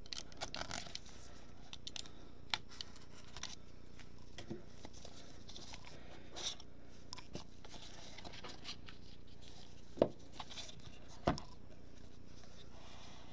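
Gloved hands handling and opening a cardboard trading-card box: scattered light clicks, scrapes and rustles, with two sharper knocks about ten and eleven seconds in.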